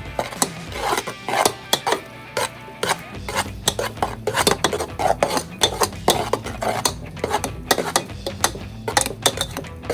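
A spoon stirring melting marshmallows in a pot, clacking and scraping against the pot's sides and bottom in quick, irregular strokes.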